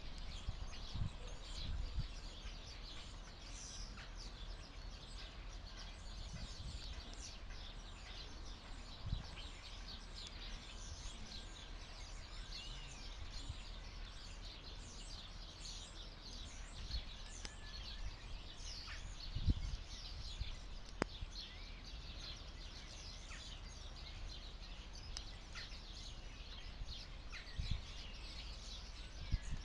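Small songbirds chirping and twittering: a continuous stream of short, high, overlapping calls, as from a feeding flock of goldfinches and chaffinches. A low rumble runs underneath, with a few low thumps.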